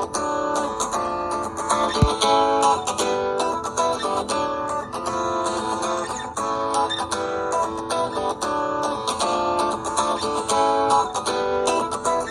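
A Samsung Galaxy Core Prime ringtone plays: a guitar tune of plucked and strummed notes. There is a single thump about two seconds in.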